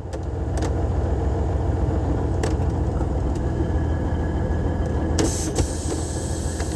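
A motor vehicle running with a steady low rumble, with a few sharp clicks scattered through it.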